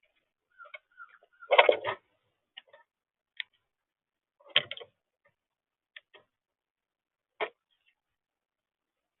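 Scattered clicks and knocks, the loudest a cluster about one and a half seconds in and another about four and a half seconds in, with a few faint short chirps.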